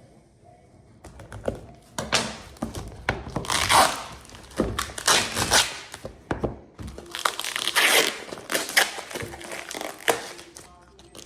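A shipping package and its packing material being torn open and crumpled by hand: irregular rustling, crinkling and tearing with a few thunks, starting about a second in.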